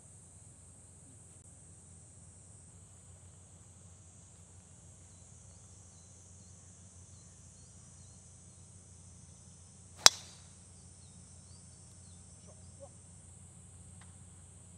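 A golf club strikes a ball with one sharp crack about ten seconds in, over steady high-pitched insect chirring.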